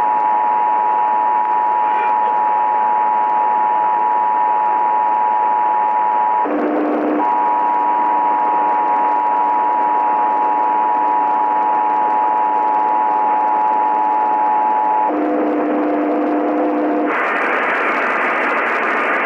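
Emergency Alert System two-tone attention signal blaring steadily over radio static, the same pair of tones held for many seconds. Twice it gives way to a lower-pitched set of steady tones, briefly about six and a half seconds in and again at about fifteen seconds. Near the end comes a harsher, brighter tone with loud hiss, one attention tone after another.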